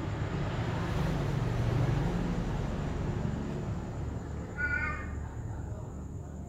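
Steady low rumble and hiss, with one short, harsh animal call about four and a half seconds in.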